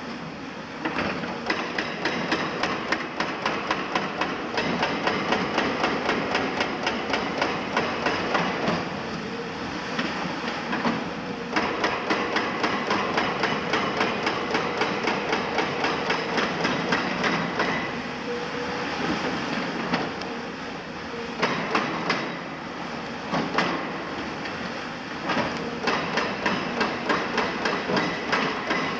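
Excavator-mounted hydraulic breaker hammering concrete in long runs of rapid, regular blows, stopping briefly a few times.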